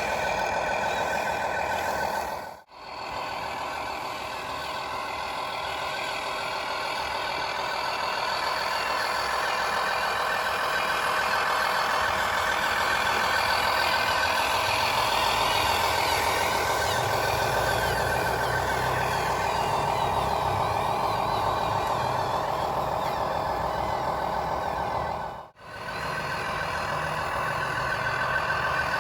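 A truck's multi-tone 'telolet basuri' horn plays held, wavering tones over a truck engine's low running sound. The sound cuts out sharply for a moment twice.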